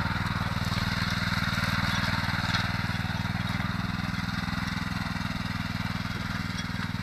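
Datsu motor tiller's small engine running steadily as the machine tills the soil.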